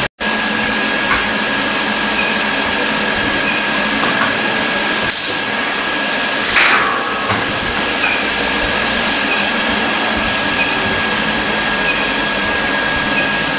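Steady workshop machinery noise with a constant high-pitched whine running through it. Two brief hissing sweeps come about five and six and a half seconds in.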